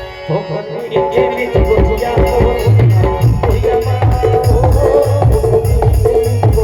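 Live folk music: a drum beating a steady rhythm with rattling percussion under a melody line. It thins out briefly at the start and comes back in full about a second and a half in.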